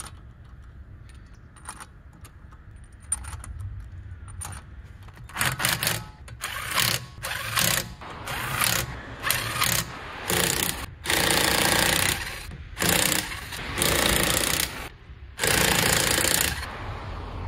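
Impact wrench on the wheel bolts, run in about a dozen short, loud bursts of half a second to a second each with brief pauses between, after a few faint clicks.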